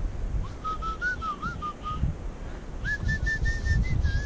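A person whistling a tune in short gliding notes that go higher in the second half, over wind rumbling on the microphone.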